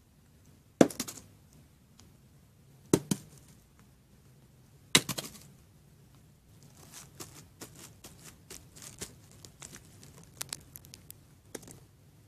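Plastic toy figures and pieces being handled and set down on a hard surface: three sharp knocks a couple of seconds apart, then a run of lighter clicks and taps.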